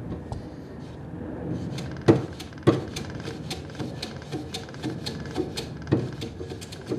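Hand plane cutting a small 45-degree chamfer on a timber workpiece in a vise: a quick run of short scraping strokes, with a few sharper knocks from the plane meeting the wood, the loudest about two seconds in.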